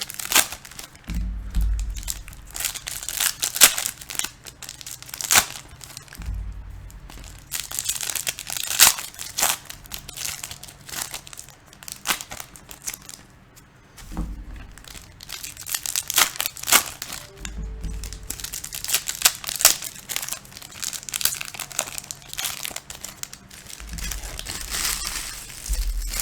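Foil trading-card pack wrappers crinkling and tearing as packs are ripped open and handled, in repeated bouts of sharp crackles with short pauses between.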